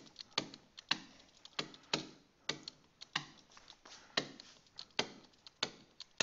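Pen stylus tapping and clicking on a tablet surface while handwriting, as the letters are written. Sharp, irregular clicks come about three a second.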